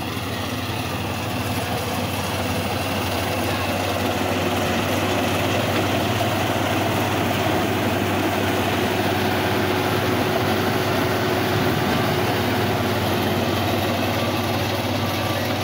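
Combine harvester running steadily with a continuous engine and machinery hum, growing a little louder over the first two seconds.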